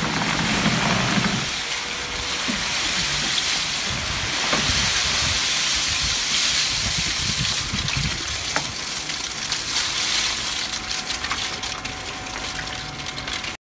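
Shredded PVC plastic flakes sliding and pouring with a steady hiss and scattered clicks as a forklift bucket scoops into a scrap pile and lifts it. The forklift's engine hum is loudest in the first second and a half.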